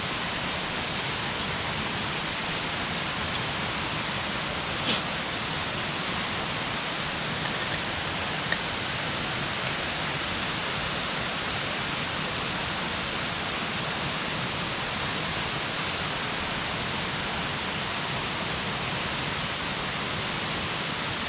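Steady rush of a waterfall running high, with a few faint clicks now and then.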